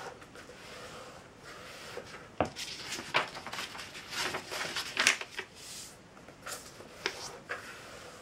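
A sheet of paper being handled and folded by hand on a tabletop: rustling and sharp crackles of the paper, busiest and loudest about halfway through, over a faint steady hiss.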